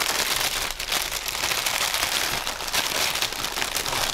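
Clear plastic wrapping bag crinkling continuously as it is handled and pulled open around a fabric headphone case.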